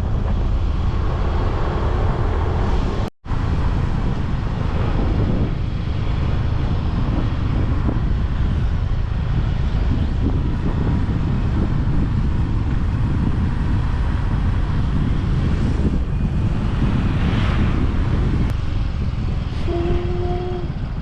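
Motor vehicle running on the move, with wind buffeting the microphone in a steady low rumble. The sound drops out briefly about three seconds in, and two short steady tones sound near the end.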